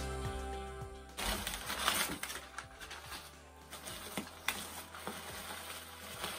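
Background music that cuts off about a second in, then crinkling and rustling of packing material and cardboard box flaps as a shipping box is opened by hand, with scattered light clicks.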